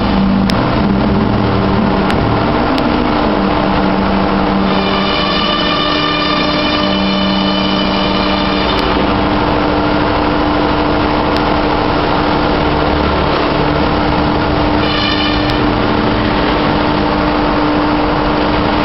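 Milling spindle on a KUKA robot arm running steadily while cutting a polystyrene foam block, a loud steady hum with a higher whine joining for a few seconds about five seconds in and again briefly near the fifteen-second mark.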